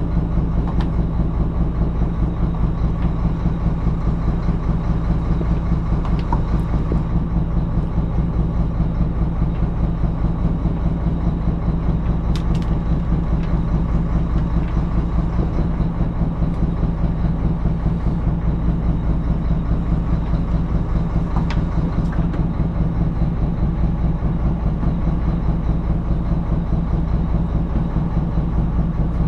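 A boat engine running steadily with a fast, even throb.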